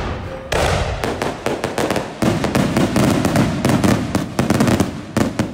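Aerial firework shells bursting overhead, heard from close by: a heavy burst about half a second in, then from about two seconds in a dense crackling of many quick pops, which stops just before the end.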